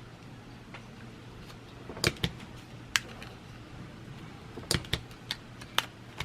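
A series of sharp plastic clicks and clacks: a close pair about two seconds in, another a second later, then a quick cluster near the end. These are a Kokuyo Harinacs stapleless stapler being worked and pressed on paperboard.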